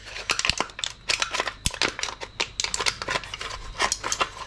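Crushed aluminium drink can crackling and popping as a metal bar pushed around inside it forces the dents back out: a rapid, uneven run of sharp clicks.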